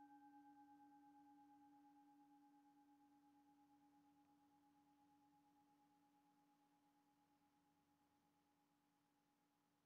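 The faint, dying ring of a struck singing bowl: a low tone with a higher one above it, wavering steadily as it slowly fades out.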